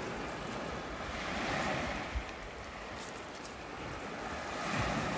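Sea surf washing on a shingle beach, a steady swelling rush, with wind buffeting the microphone that grows stronger near the end.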